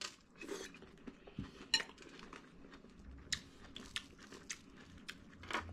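Scattered light clicks and clinks of cutlery on a plate while eating, about a dozen small ticks spread unevenly.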